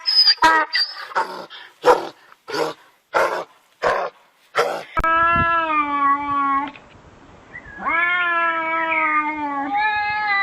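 An animal calling, most like a cat: a run of short calls about every two-thirds of a second, then, after an abrupt change, long drawn-out wailing calls of a second or two each.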